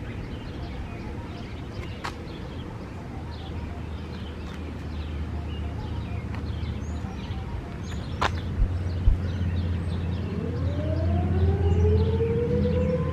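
Outdoor warning siren winding up about ten seconds in, two tones rising steadily in pitch, with small birds chirping throughout.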